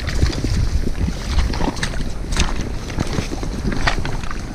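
Footsteps crunching on the river-stone shore, a step roughly every three-quarters of a second, over a heavy low rumble of wind buffeting the microphone.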